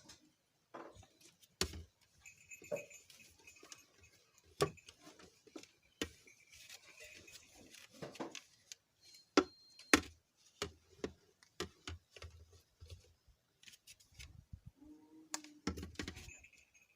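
Irregular clicks, taps and knocks of hard plastic mixer-grinder body parts being handled while rubber pieces are pressed into the base.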